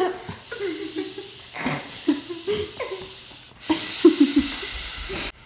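Giggling and breathy laughter in short snatches, with a blanket rustling.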